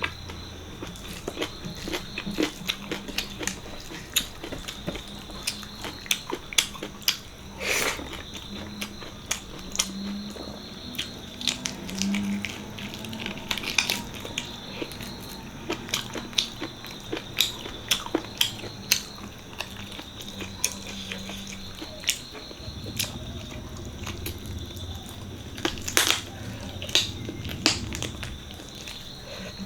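Close-up eating sounds: chewing and biting on mutton leg (paya) curry, with many sharp wet clicks and crunches spread throughout.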